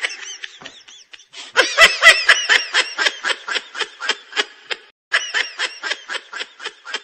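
High-pitched laughter: a quick string of ha-ha pulses, about five a second, in two runs with a short break about five seconds in.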